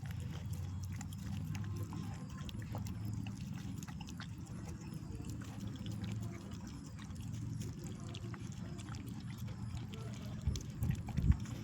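A street dog eating, with faint chewing and mouth clicks over a steady low hum, and a few louder thumps near the end.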